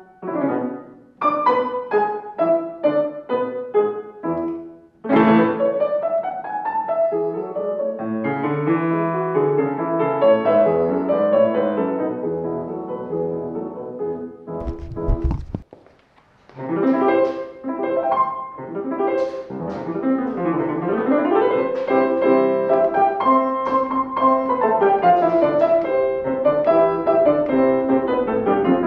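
Grand piano playing, struck notes ringing and fading. About halfway through the playing breaks off briefly with a low thump, then resumes as loose warm-up playing to get the feel of the instrument.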